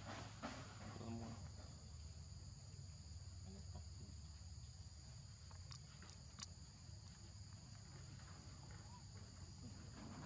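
Faint, steady insect chorus, a high two-toned drone, over a low rumble, with a few light clicks about six seconds in.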